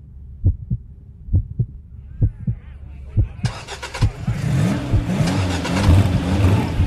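Intro of a song: pairs of deep thumps like a heartbeat, then about three and a half seconds in a car engine sound comes in loud and keeps running and revving.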